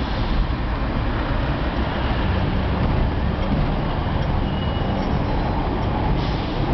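Hong Kong double-decker electric tram running along its street tracks, heard from on board as a steady low rumble, mixed with the noise of street traffic.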